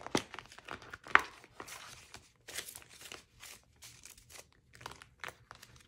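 Paper banknotes and plastic envelopes rustling and crinkling as cash is handled and stuffed into budget envelopes, in irregular short rustles, with a sharp click about a second in.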